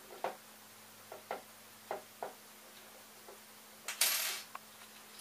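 Small hardware and parts being handled on a desk: a string of short, light clicks and clinks as pieces are picked up and set down, then a brief scrape about four seconds in.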